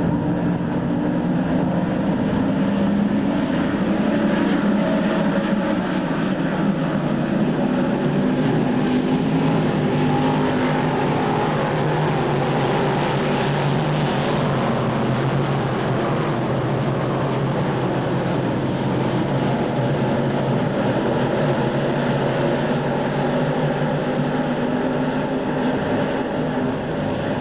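Dirt modified race cars running on the track: a steady drone of several engines at speed, their pitch drifting up and down as the field laps.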